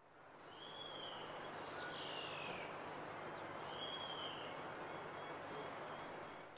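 A bird calling over a steady background hiss: three short whistled notes, each rising then falling, spaced a second or two apart.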